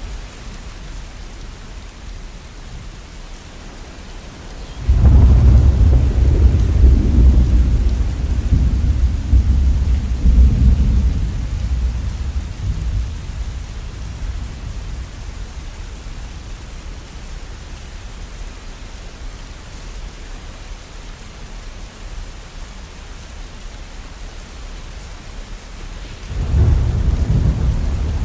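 Steady rain with two rolls of thunder: a deep rumble that starts suddenly about five seconds in and fades over several seconds, and another that starts near the end.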